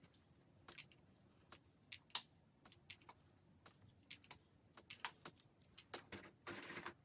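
Quiet handling sounds: scattered faint clicks and taps, with a short burst of noise near the end.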